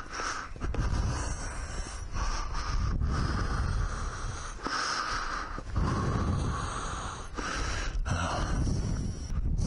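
A person breathing heavily close to a helmet-mounted microphone, breaths coming every second or two over a low rumble.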